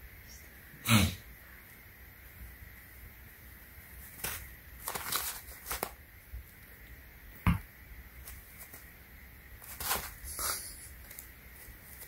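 Scattered rustles and crinkles of a kitten's paws on plastic-backed puppy pads, with two sharp knocks, one about a second in and one past the middle.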